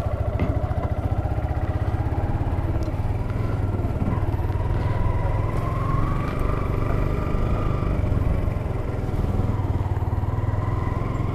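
Yamaha sport motorcycle's engine running at low speed, heard from on the bike, its note rising a little midway.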